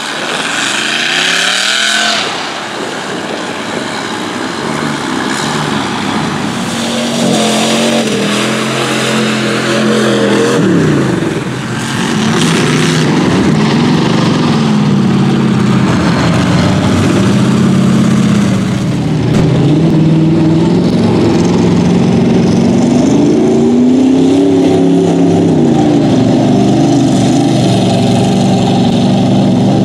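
Lifted mud trucks' engines revving hard under load while plowing through a mud pit, their pitch rising and falling again and again as the throttle is worked.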